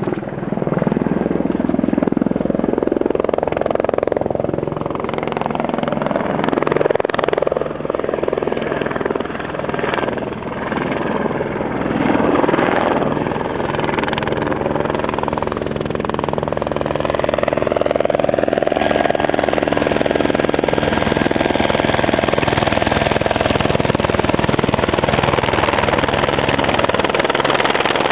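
Helicopter's rotor chop and engine. The pitch wavers up and down through the first half, then holds steady as the helicopter comes in to land close by.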